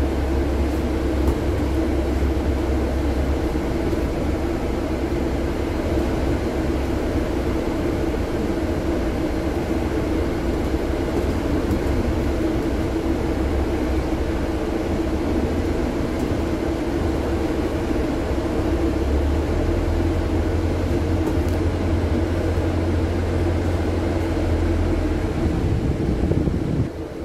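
Double-decker bus engine and road noise heard from inside the upper deck: a steady low rumble and drone while the bus drives along.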